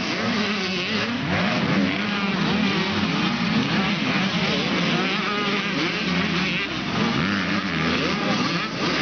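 Several motocross minibikes racing, their small two-stroke engines revving up and down. The overlapping high engine notes keep rising and falling without a break.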